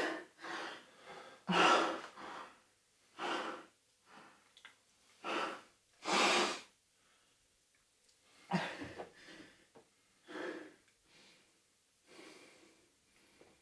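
Men breathing heavily, with irregular loud exhales and sighs about once every second or so.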